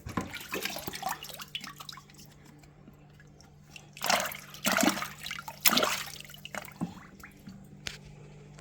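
Water splashing and sloshing in uneven bursts, loudest in three surges midway, over a steady low hum.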